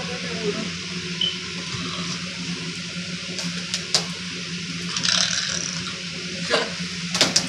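Box fan running: a steady airy hiss with a constant low hum. A few sharp clicks and knocks come around the middle and near the end.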